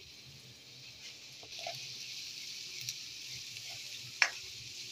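Chopped onions and cumin seeds sizzling in hot oil in a nonstick kadai, the sizzle growing stronger about a second and a half in as a spatula stirs them. One sharp knock of the spatula against the pan near the end.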